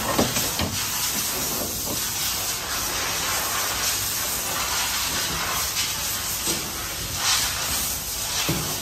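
A steady hiss, with a few faint knocks as the metal heat-seal bracket of a cellophane wrapping machine is handled and a screwdriver is worked on it near the end.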